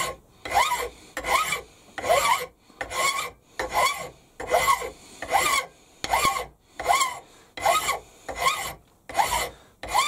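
A large flat hand file taking casting flashing off a model steam engine cylinder casting. It makes about thirteen even rasping strokes, a little over one a second. Each stroke carries a short squeal that rises and falls.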